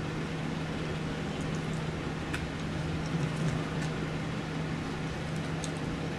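Steady low hum of a room appliance, with a few faint clicks from a plastic fork working food in a foam takeout box.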